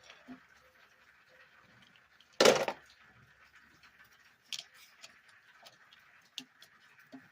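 A loud metallic clatter about two and a half seconds in, followed by a few lighter clicks and taps: tools and metal parts being handled during an engine teardown.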